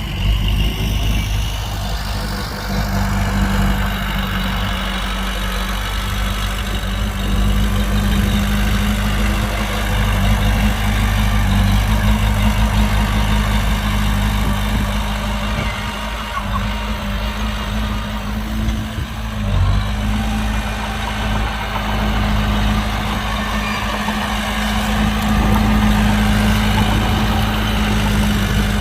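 Heavy diesel engine of earthmoving equipment running steadily at a constant low speed, a continuous low hum with no revving.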